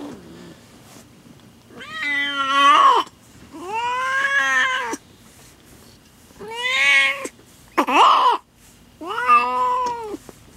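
A domestic cat (queen) in labor giving five long, drawn-out meows, each rising and then falling in pitch, with short pauses between them; the fourth is shorter.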